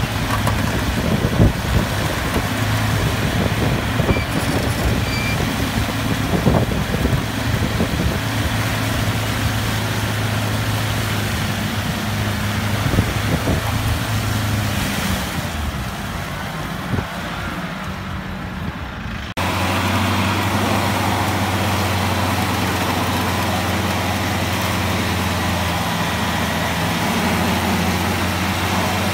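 Off-road 4x4 engine running steadily in a muddy field. About two-thirds of the way through, the sound cuts abruptly to a Mitsubishi L200 pickup's engine running close by as a steady low drone.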